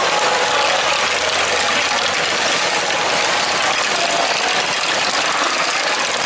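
LEGO Great Ball Contraption modules running: electric motors and plastic gears and chains make a steady mechanical whir and clatter as small plastic balls are lifted and passed along.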